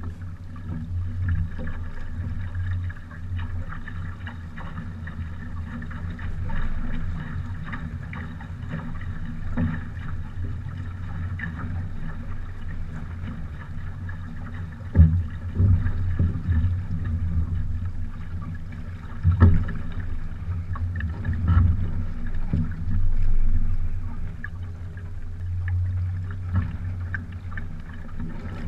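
Water washing and lapping along the hull of a small sailing trimaran, heard close to the waterline, with a few knocks.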